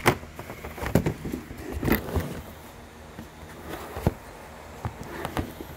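Several scattered knocks and bumps of parts and the wooden Leslie speaker cabinet being handled, over a faint steady low hum.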